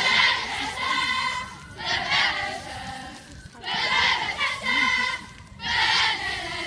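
Cheerleading squad shouting a cheer in unison, in loud chanted phrases that start about every two seconds.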